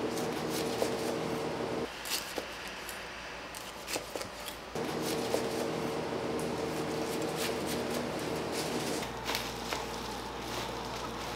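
Food-prep clatter in a small kitchen: scattered short clicks and taps over a steady machine hum. The hum drops out and returns abruptly several times.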